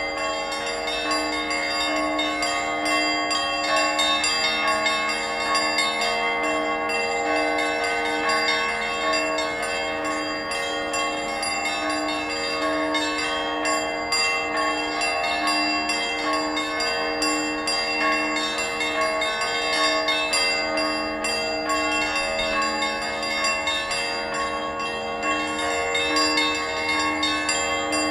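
Church bells ringing continuously, with strokes coming about once a second and their tones overlapping without pause.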